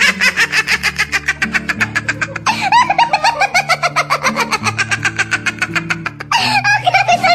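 A man laughing hard in quick, even "ha-ha" pulses over background music; the laugh breaks off and starts up again about two and a half seconds in and again about six seconds in.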